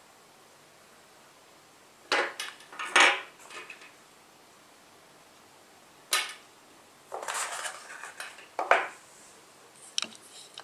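Small plastic phone accessories (wired earphones, earbud tips, charger) handled and set down on a glass tabletop: a handful of short clicks and clatters with quiet gaps between them.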